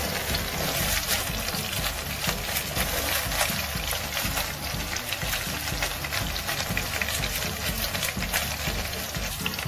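Slab of crispy roast pork frying in hot oil in a pan: steady sizzling with many small pops, starting as the meat is laid in.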